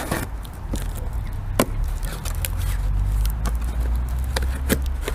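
A small cardboard box being handled and opened: scattered clicks, taps and knocks, with one sharp knock about one and a half seconds in, over a steady low rumble.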